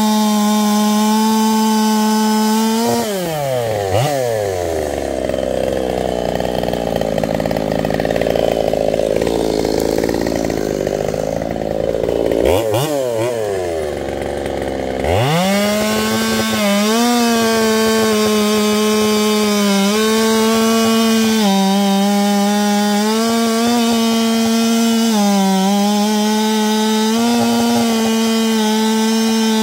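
Ported chainsaw cutting through a large log at full throttle. About three seconds in it drops to idle, then revs back up about twelve seconds later and runs on at full throttle, its pitch dipping briefly a few times under load in the cut.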